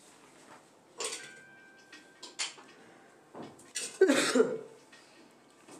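A few separate clinks and knocks of small hard objects being handled, the loudest cluster about four seconds in.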